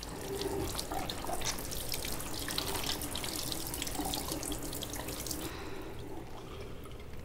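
Water running from a chrome tap and splashing over hands being washed in a sink; the flow stops about five and a half seconds in.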